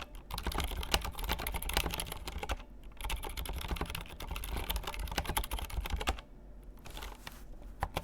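Typing on an Archon AK87 mechanical keyboard with Cherry MX Silent Red linear switches and ABS OEM-profile keycaps: a fast, continuous run of keystrokes with a short pause about two and a half seconds in, thinning out about six seconds in to a few isolated key presses.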